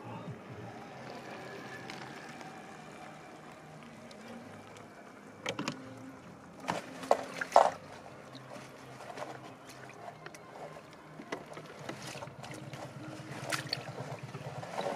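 A barbel flapping in a landing net inside a weigh sling, with water splashing and the net and bag being handled. A burst of sharp slaps about seven seconds in is the loudest part, and there are more slaps near the end.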